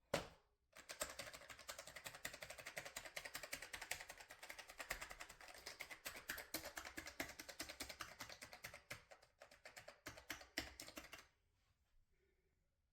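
Fast, continuous typing on a mechanical keyboard, many key clicks a second, after one sharp click at the start. The typing stops about a second and a half before the end.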